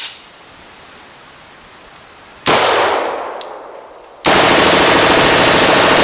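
POF USA P416 rifle firing: a first burst about two and a half seconds in that rings off and fades, then a sustained burst of rapid automatic fire lasting about two seconds near the end.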